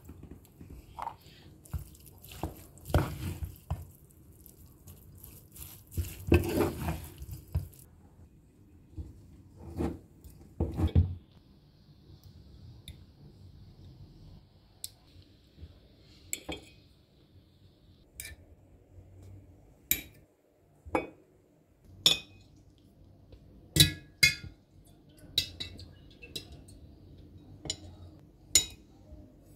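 Cooking sounds: corn kernels poured into a metal pot and stirred with a wooden spatula, then in the second half a metal spoon clinking against a glass jar and a plate in a series of sharp clinks.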